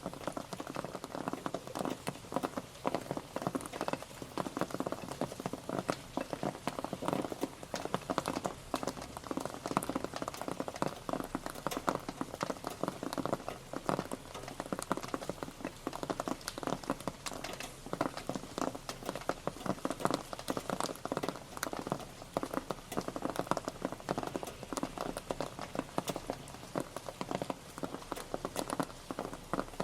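Rain pattering steadily, a dense, even run of many drops striking a surface.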